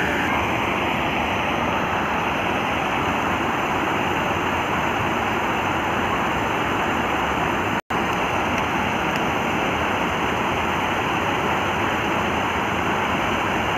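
Steady rush of water pouring over a weir's edge, an even hiss that breaks only for a moment just past halfway.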